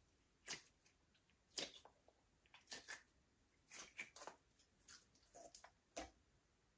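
Faint squishing of slime being kneaded and mixed, with about a dozen short, irregular sticky clicks and pops.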